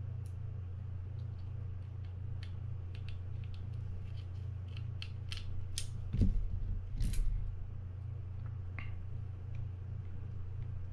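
Light metallic clicks and ticks of a mini screwdriver and the parts of a Mitchell 300 spinning reel being handled as its plate is screwed down. The clicks come thickest a few seconds in. There are two heavier knocks about six and seven seconds in, over a steady low hum.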